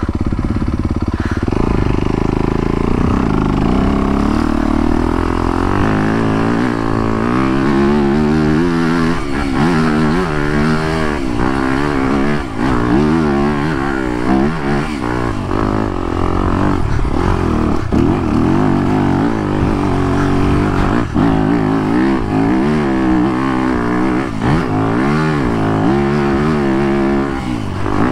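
2021 Yamaha YZ250FX's single-cylinder four-stroke engine heard on board while trail riding, its pitch rising and falling over and over as the throttle is opened and closed, with a few brief knocks along the way.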